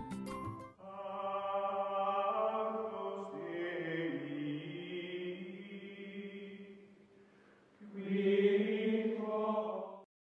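Outro music: a few sharp struck notes, then long held choir-like chanting chords that slowly fade, and a second swelling chord about eight seconds in that cuts off suddenly just before the end.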